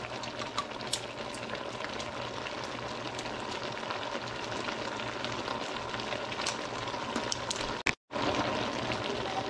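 A pot of pinakbet vegetables simmering in broth on an electric stove, a steady bubbling sizzle with fine crackles. The sound cuts out for a moment near the end.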